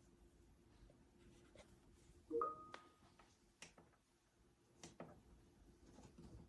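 Near silence: faint room tone with scattered soft clicks, and one brief short tone about two and a half seconds in.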